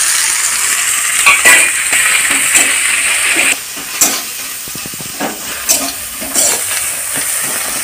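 Sliced onions sizzling in hot oil in a metal kadai, with a ladle scraping and clinking against the pan as they are stirred. The sizzle turns quieter about three and a half seconds in.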